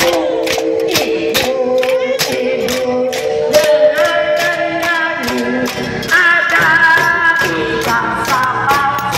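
A group of women singing together, with cooking pots, pan lids and tins struck in a steady beat of about three hits a second.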